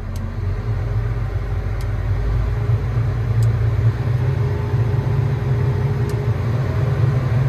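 Develon DX380 excavator's diesel engine running, its revs brought up over the first few seconds and then held steady at a high idle of about 1350 rpm while it warms up after a fuel-filter change.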